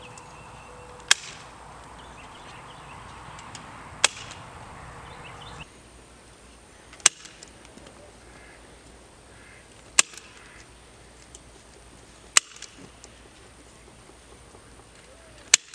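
Six sharp single clicks or snaps, roughly three seconds apart, over a faint outdoor background.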